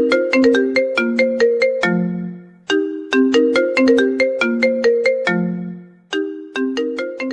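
Mobile-phone ringtone melody: a quick run of short struck notes that fade, the same phrase starting over twice, about every three and a half seconds.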